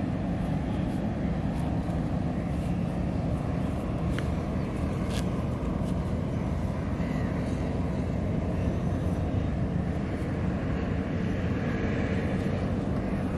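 Steady low motor rumble with a faint even hum, and a few light clicks over it.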